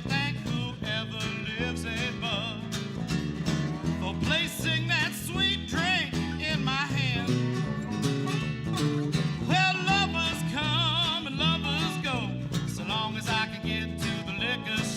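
Country band with guitar playing an instrumental passage of the song, with a wavering high melody line over a steady bass and chords.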